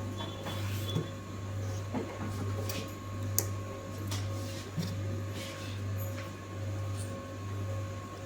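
Steady low machine hum that swells and fades about once a second, with scattered clicks and light knocks of server hardware being handled.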